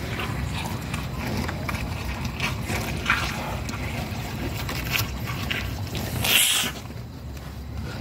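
Calf scuffling and being held while green herbal paste is hand-fed into its mouth: rustling, small knocks and handling noise over a low rumble, with one loud hissing burst about six seconds in.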